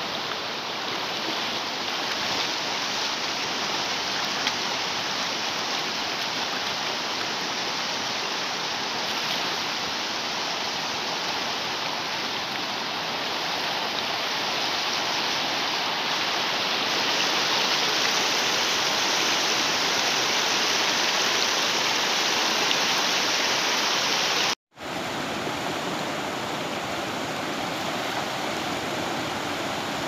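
Fast mountain river rushing over rocks: a steady, loud water noise. It cuts out for an instant about three-quarters of the way through, at a cut in the footage.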